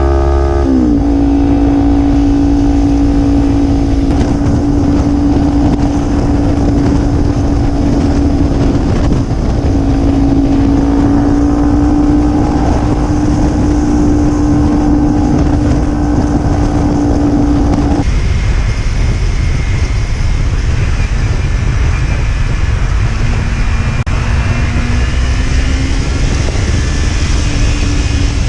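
Kawasaki Ninja 300 parallel-twin engine and exhaust under way at a steady cruise, a strong even engine note that climbs slightly, over a low rush of wind. About 18 seconds in the sound cuts to a different run in a tunnel, where the engine note is lower and rises and falls.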